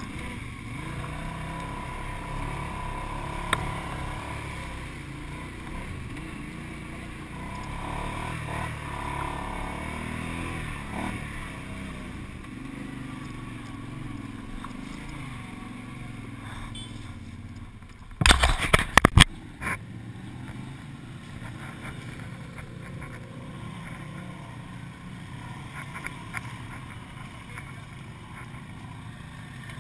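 ATV engine running and changing pitch as it rides over rough, muddy forest trail. About 18 seconds in comes a burst of loud knocks and clatter lasting about a second, after which the engine runs quieter.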